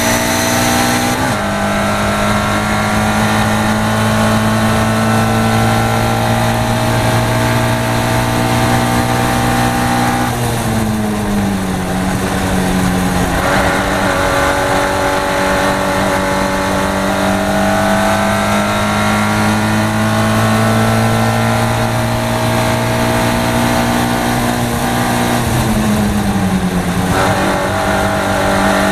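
Caterham Seven race car engine at full throttle, heard from the cockpit: a loud, near-steady engine note that dips in pitch briefly about a second in, again around eleven seconds and near twenty-six seconds, and climbs slowly in between.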